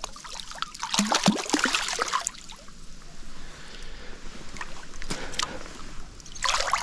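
Water splashing in short bursts at the water's edge as a small hooked catfish is landed: one long flurry of splashes about a second in, then two shorter ones later.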